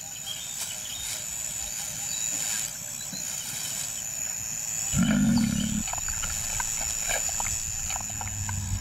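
A lion gives one short low growl about five seconds in, lasting about a second, over a faint background with scattered small clicks.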